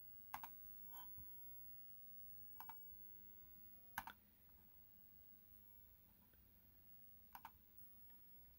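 Computer mouse clicking: a handful of faint, sharp clicks several seconds apart, some in quick pairs, over near-silent room tone.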